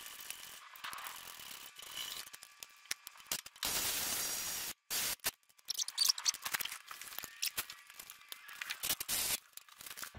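Tools and bolts being worked on a steel tractor subframe from underneath: scattered clicks, rattles and scraping, with a steady burst of noise a little over a second long about four seconds in.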